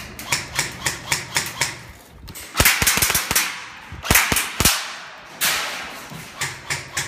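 Airsoft gunfire at close quarters: a quick, even run of sharp cracks at about four a second that fades out in the first two seconds, then several loud cracks in tight clusters with a rattling hiss through the middle.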